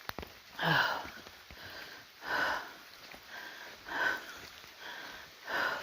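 A person breathing close to the microphone while walking, four loud breaths about a second and a half apart with softer ones in between.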